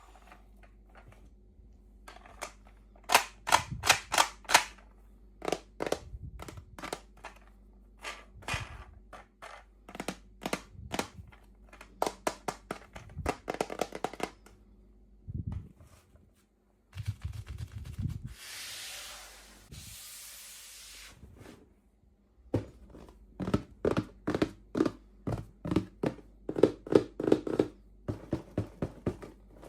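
Small plastic toy pieces and packaging handled by hand: runs of quick clicks and taps, with a rustle of wrapping for a couple of seconds past the middle.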